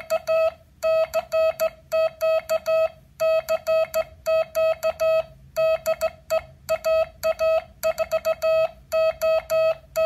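Morse code sent by hand on a straight key through a practice oscillator: a steady mid-pitched beep keyed on and off in short dots and longer dashes, with brief pauses between characters.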